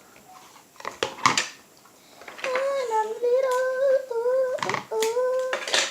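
A child humming a steady, slowly wavering tune, starting about two and a half seconds in, after a few short sharp sounds.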